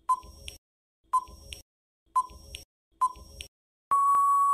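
Quiz countdown-timer sound effect: a short beep with a click after it, once a second, four times, then a long steady beep near the end as the timer runs out.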